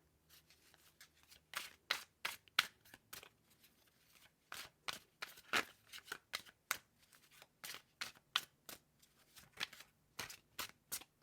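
A deck of tarot or oracle cards being shuffled by hand: irregular sharp flicks and slaps of cards, several a second.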